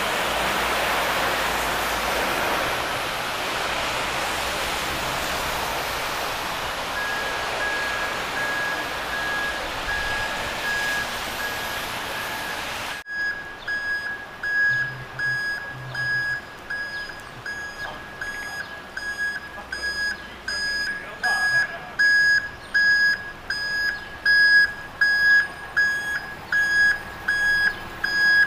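Steady hiss of rain for the first half, then, after an abrupt cut, a vehicle's reversing alarm beeping about once a second on one high tone.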